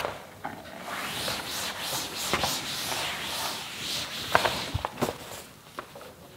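A cloth duster wiped across a chalkboard, a dry scrubbing in repeated strokes that erases the chalk writing. Near the end it gives way to a few light clicks and taps.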